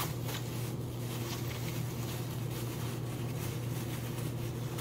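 Thin plastic produce bag crinkling and rustling as red potatoes are taken out of it by hand, over a steady low hum.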